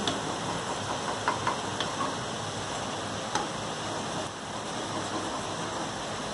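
Hot oil sizzling steadily around breadcrumb-coated potato bites deep-frying in a pan, with a few light clinks of a metal slotted spoon as pieces are lifted out.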